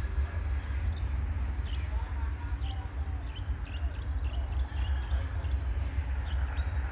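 Low, steady rumble of a distant diesel locomotive working with a freight train, while small birds chirp in short high notes several times.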